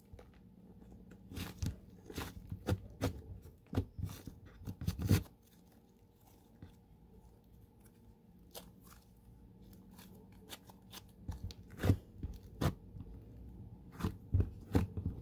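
Sticky white slime being kneaded, pressed and pulled by hand, making irregular wet clicks and pops. The clicks come thickly at first, thin out in the middle, and pick up again near the end. The slime is soft and sticky from too much added water.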